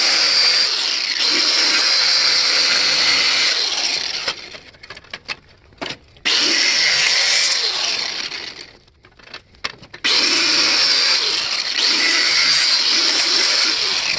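Angle grinder with a metal cut-off disc, cutting through the thick plastic ear cup of an SPH-4 helmet shell. It runs in three spells and is let off about four and about nine seconds in, winding down before it starts again.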